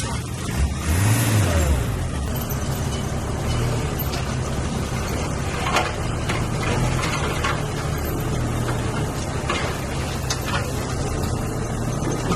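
Heavy diesel engine of earthmoving machinery running steadily, revving up and back down briefly about a second in, with scattered sharp knocks and clanks over the engine.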